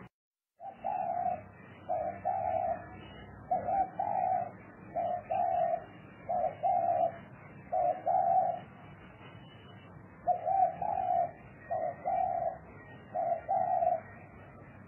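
Spotted dove cooing: a steady run of two-part coos, each a short note followed by a longer one, about one phrase every second or so, with a brief pause in the middle.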